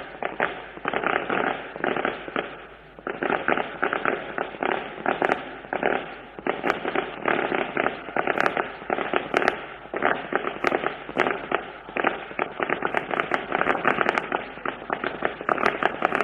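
Firecrackers going off in a long, rapid crackling string of bangs, with a brief lull about two and a half seconds in.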